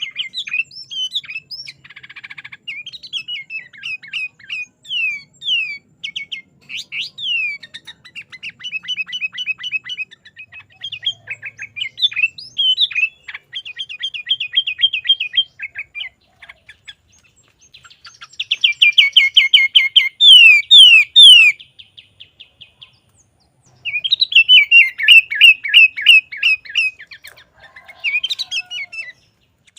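Sooty-headed bulbul singing hard in fast runs of chirps and rapid trilled phrases, with short pauses between them. The song is loudest in two bursts, about two-thirds of the way in and again shortly after.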